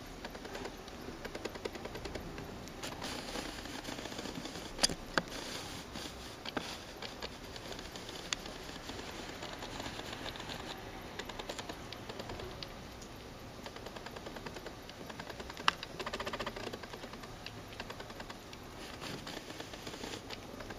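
Four-week-old rat pups scurrying on a carpet: a steady patter of tiny clicks and scratches from their claws and the sprouts they scatter, with a few sharper clicks about 5 s and 16 s in.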